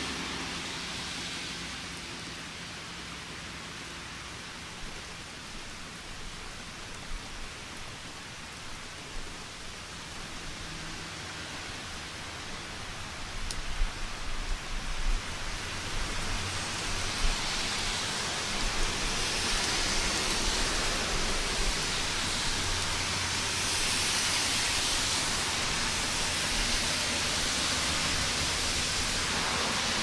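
Steady rain, a dense even hiss that grows louder and heavier about halfway through, with a few sharper splashes as it builds and a low rumble underneath.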